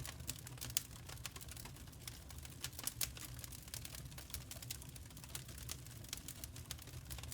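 Wood fire crackling: irregular sharp pops and snaps of varying loudness over a steady low rumble of burning logs.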